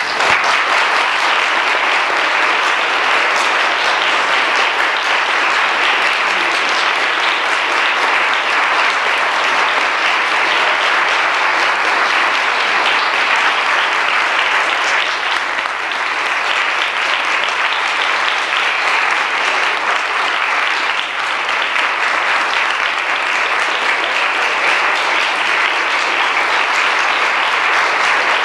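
An audience applauding: many people clapping at once at an even, sustained level.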